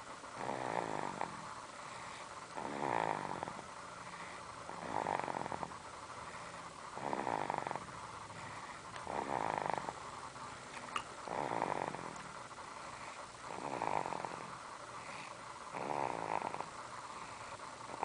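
Slow, regular snoring, one snore about every two seconds, each lasting under a second.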